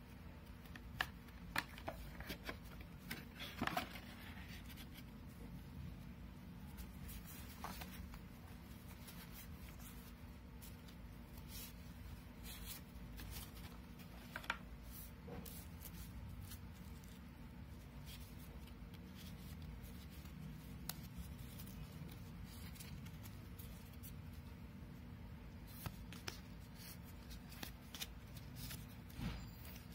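Printed cards, postcards and a cardboard box being handled and shuffled: scattered light clicks, taps and rustles, with a cluster of sharper clicks in the first few seconds, over a faint low hum.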